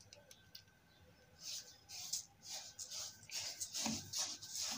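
Wooden spoon stirring toasted sesame seeds in a metal saucepan: a dry scratchy rustle of the seeds, in repeated strokes starting about a second and a half in. The seeds are being warmed in a spoonful of oil so it coats them.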